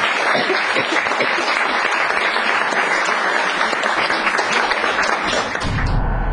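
Audience applauding, many people clapping steadily. Near the end the clapping cuts off and a low, steady music tone begins.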